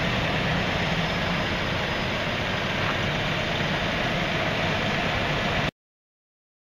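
Heavy diesel engine idling steadily, cutting off suddenly near the end.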